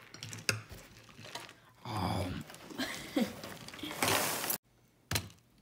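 A spoon clinking in a ceramic cereal bowl, with a few short non-word vocal sounds in the middle and a brief loud rush of noise near the end that cuts off suddenly.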